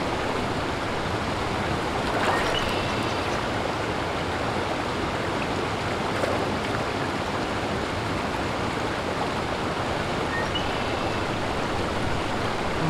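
Steady rush of flowing river water from the Fall River, a small river, with a couple of faint short high chirps.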